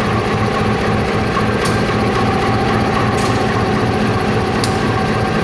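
Diesel locomotive engine idling steadily, with a few sharp clicks about every second and a half.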